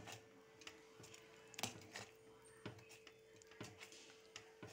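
Faint, irregular scrapes and taps of a metal spoon stirring thick semolina pongal in a pan, over a steady faint hum.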